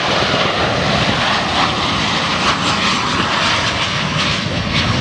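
Jet engines of a Boeing 737 airliner on final approach to land, passing low overhead as a steady, loud rushing noise.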